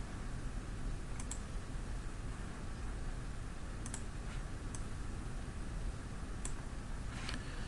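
Computer mouse clicking now and then, about eight clicks, several in quick pairs, over a steady background hiss.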